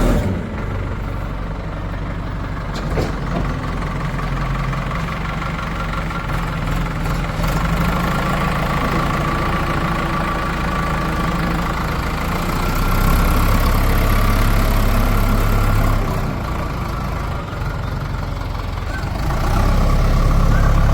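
Diesel engines of a backhoe loader and farm tractors running steadily, getting louder about two-thirds of the way through, dropping back, then rising again near the end.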